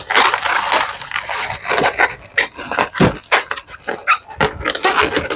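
Latex twisting balloons rubbing and squeaking against each other and against the hands as they are handled and twisted into bubbles. A busy run of short rubbery squeaks and scrapes, some sharper than others.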